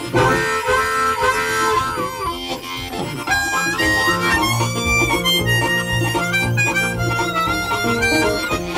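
Background music led by a harmonica playing chords, with a pulsing bass line that comes in about three seconds in.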